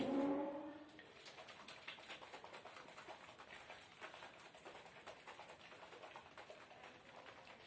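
Plastic slime shaker cup being shaken quickly, its contents making a faint, fast, continuous rattling. A brief hum from a voice in the first second.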